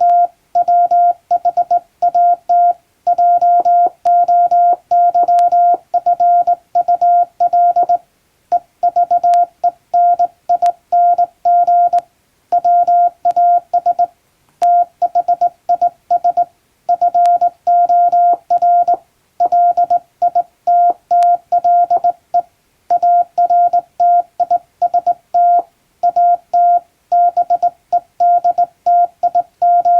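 Morse code tone, a single steady pitch, keyed by hand on a JRC telegraph key. It sends an English-language telegram as a quick run of dots and dashes, with short pauses between letters and words.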